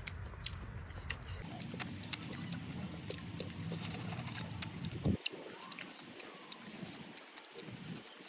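Close-miked eating: a person chewing, with many short sharp mouth clicks.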